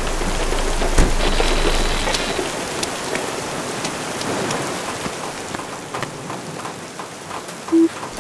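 Steady rain falling with scattered raindrop taps, over a low rumble that fades out after about two seconds. A single short beep sounds near the end.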